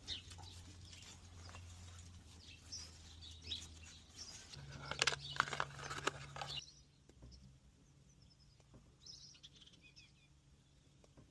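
Birds chirping over a faint, steady low hum. The hum steps up in pitch about four and a half seconds in and fades out near seven seconds, with a few sharp clicks in between.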